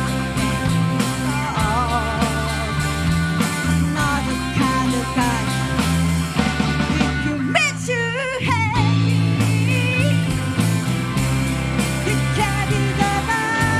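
Live rock band playing: electric guitars, electric bass and drum kit, with a wavering melody line over a steady bass part. The low end briefly thins out about eight seconds in.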